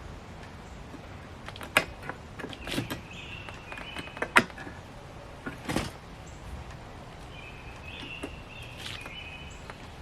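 Metal seat-track parts being worked by hand while the track's spring is fitted: a few sharp knocks and clicks, with two brief spells of high squeaking in between.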